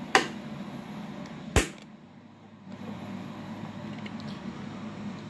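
Two sharp clicks of the amplifier's front-panel high/standby/low toggle switch being flipped, about a second and a half apart, over a steady low hum.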